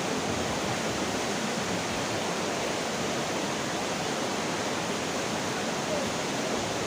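Waterfall: water falling and rushing in a steady, even roar of noise.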